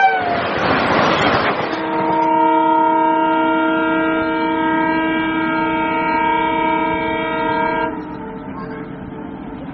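Train horn: a hissing burst of about two seconds, then the horn holds one steady multi-note chord for about six seconds and cuts off, leaving a fainter steady noise.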